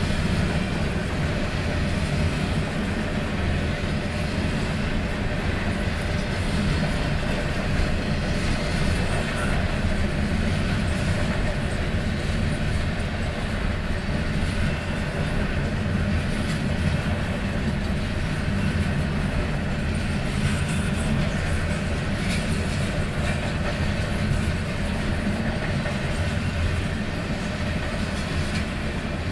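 Freight train cars rolling past on the rails at a steady speed, a continuous low rumble without pause.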